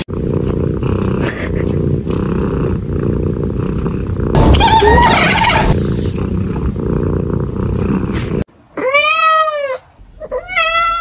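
Kitten purring loudly and steadily, close up, with a short pitched trill about halfway. The purring cuts off about three-quarters of the way in, and a kitten meows twice: one long drawn-out meow, then a shorter one near the end.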